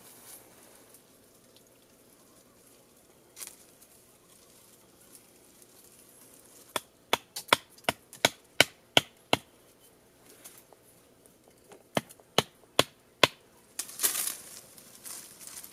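Sharp blows of a hand tool knocking a wooden trap stake into the ground. About nine quick strikes, roughly three a second, come after a few seconds, then four more follow a short pause. A brief rustle comes near the end.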